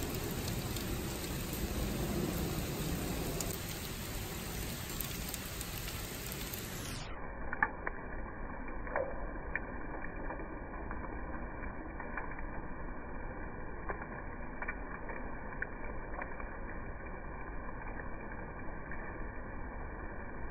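Hailstones falling steadily, a dense hiss of ice pattering on a flat roof and the ground, with scattered sharper ticks of individual stones. About seven seconds in the sound turns duller.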